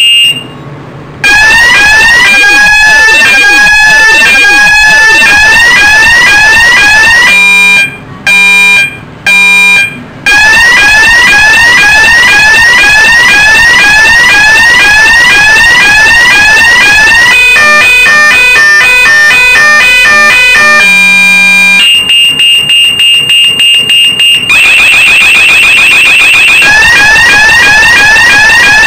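Auer ES-series electronic alarm sounder, very loud, switching through its signal tones. It plays repeated rising sweeps (about two a second in the longest stretch), then interrupted stepped beeps, a steady tone, rapid pulsing, a fast warble, and rising sweeps again.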